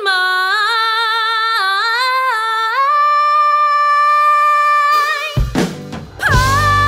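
A woman singing alone, unaccompanied, in a jazz style: a phrase that climbs into a long held note. About five seconds in it cuts to a band with drums and bass, and she holds a high note over it.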